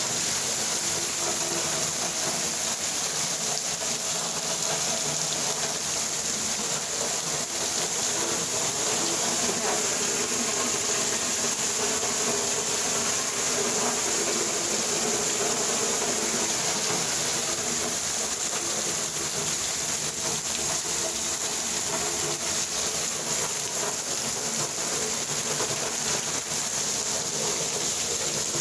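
Heavy rain pouring down, a loud steady hiss of drops hitting the lawn, paving and porch floor.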